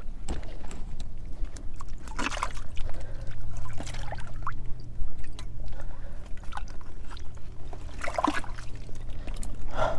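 Water sloshing and trickling in an ice-fishing hole as a hooked fish is brought up toward the surface, with scattered small clicks and a steady low hum underneath.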